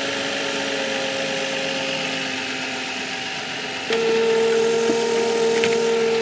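2005 Nissan Maxima's 3.5-litre V6 idling with the hood open and a steady whine over it, which the owner takes for a failing alternator. About four seconds in the sound steps louder and the whine drops to a lower pitch.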